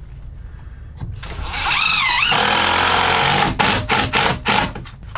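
Cordless impact driver driving a structural screw up into a wooden girder. The motor winds up with a wavering whine about a second and a half in and hammers steadily for about two seconds, then gives several short trigger bursts as the screw is seated.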